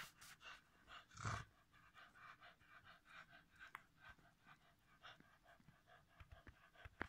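A Cavalier King Charles spaniel panting faintly in quick, even breaths, with one louder short sound about a second in.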